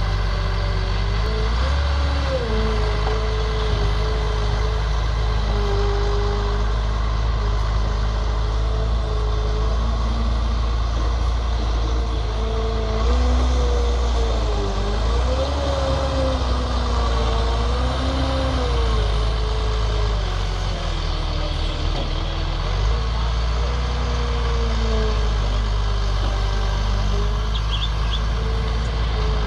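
Snow groomer's diesel engine running hard, its pitch rising and falling again and again as the machine pushes and shapes snow, over a steady low rumble.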